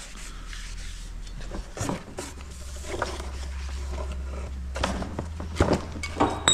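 Scattered short knocks and rustles from brake parts and tools being handled, over a steady low hum.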